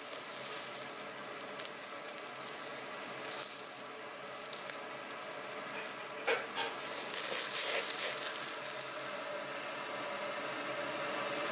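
Pig intestines sizzling on a wire-mesh grill over charcoal, a steady crackling hiss, with a few sharp clicks between about six and eight seconds in.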